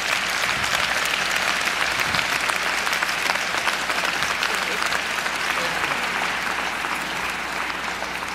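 A large audience applauding, a dense, steady clatter of many hands clapping that eases off slightly near the end.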